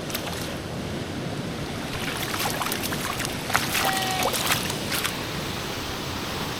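Steady rush of river water with wind on the microphone. From about two seconds in there is a run of sharp splashes and clicks, loudest a little past the middle.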